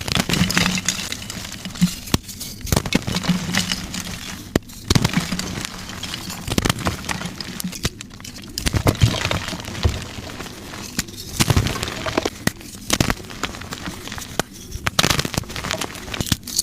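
Soft dyed gym-chalk blocks being crushed, with dense crunching and crackling that comes in repeated bursts and short pauses.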